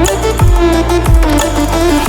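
Electronic background music with a heavy beat: deep bass hits that drop in pitch about twice a second under sustained synth lines.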